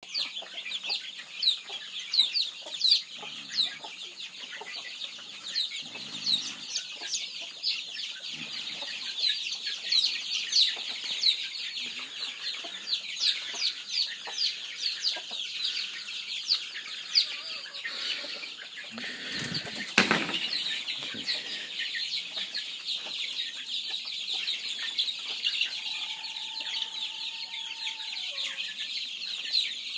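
A flock of chickens calling together: a dense, continuous chorus of short, high-pitched peeping calls. A brief noisy rustle stands out just before twenty seconds in.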